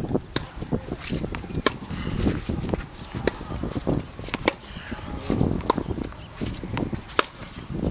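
Tennis ball being struck with a racket and bouncing on a hard court during a rally: a series of sharp pops at irregular intervals, the loudest a little after seven seconds in, with shoe scuffs between the strokes.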